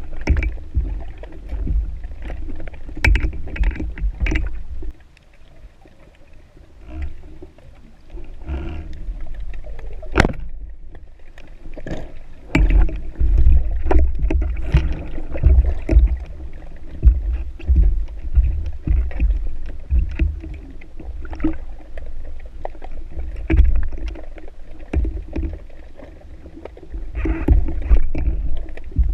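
Water sloshing and rumbling around an underwater camera, in uneven surges with scattered sharp clicks.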